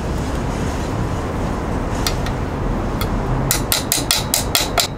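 Small metal clicks as a locking ring is worked by hand onto a motorcycle exhaust flange bolt: a few separate clicks, then a quick run of about five clicks a second near the end, over a steady low rumble.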